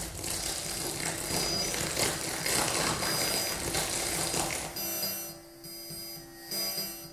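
Experimental electronic music played live: a dense, noisy, crackling texture that thins out about five seconds in, leaving a quieter steady low tone with a few short swells.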